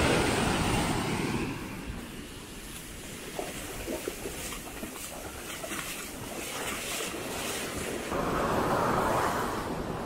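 Ocean surf breaking and washing up a sandy shore, swelling loudly at the start and again about eight seconds in, with wind rumbling on the microphone.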